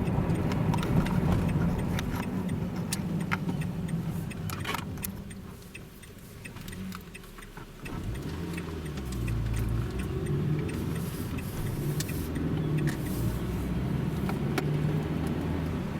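Car engine and road noise while driving; the engine eases off about five seconds in, then picks up again with a rising note near eight seconds. Faint scattered clicks and rattles are heard over it.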